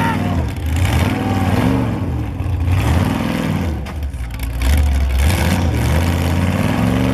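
Ultra4 rock-racing car's engine revving up and back down in repeated short bursts over a steady deep idle as it crawls up over boulders.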